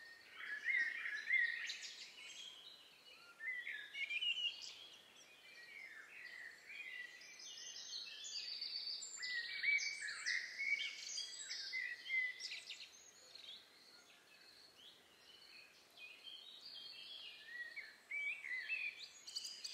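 Forest ambience of several songbirds singing at once: many short chirps, whistles and trills overlapping, busiest in the middle and thinning out for a few seconds near the end, over a faint background hiss.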